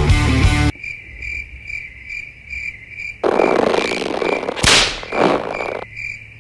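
Rock music cuts off and a crickets-chirping effect pulses steadily, about three chirps a second. About halfway in, rough croaking bursts and one sharp crack join it.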